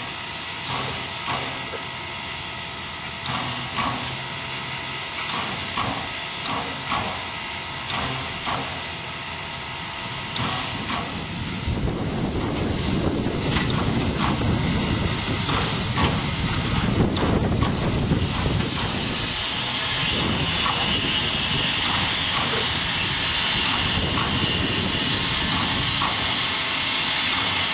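Steam locomotive No. 734 hissing steam steadily, with scattered light knocks. A louder rumble swells from about twelve to eighteen seconds in, and a stronger, higher hiss takes over from about twenty seconds.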